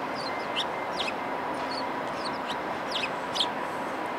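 Steady rumble of a diesel-hauled passenger train rolling slowly over station trackwork, with a faint steady tone. Short, high, downward-sliding bird chirps repeat throughout on top of it.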